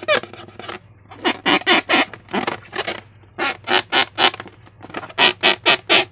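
Slime being squeezed and worked by hand, giving quick wet squelches and squeaks in groups of several, about four or five a second.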